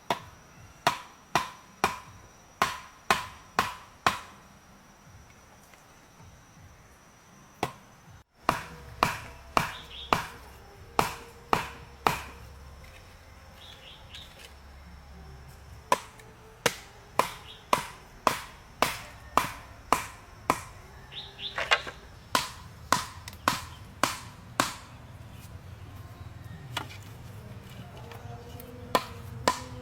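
Wood being chopped: runs of sharp strikes, about one or two a second, with a pause of about four seconds after the first run. A bird chirps briefly a couple of times.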